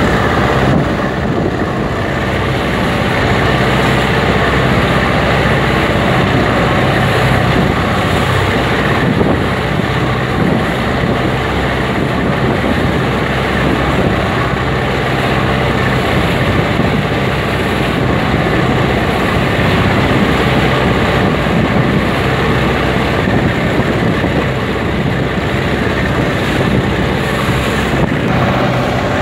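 Fishing boats' inboard diesel engines running steadily under way, with water rushing and splashing along the hulls and wind on the microphone.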